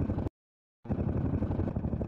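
Helicopter rotor sound, a steady rapid blade chop over a deep engine drone. It cuts out completely for about half a second near the start, then comes back abruptly.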